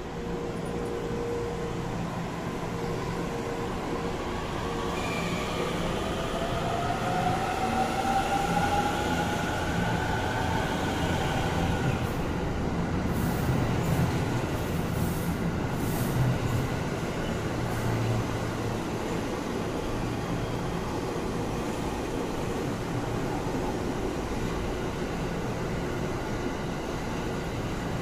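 JR East commuter electric train pulling out of a station. Its motors give a whine that rises in pitch over the first ten seconds or so as it accelerates, then the cars run past on the rails with a steady rumble.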